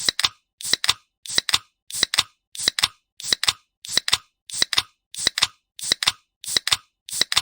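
Aluminium soda can being opened, the pull-tab cracking with two quick snaps and a short fizz. The same opening sound repeats in a tight loop, about one and a half times a second.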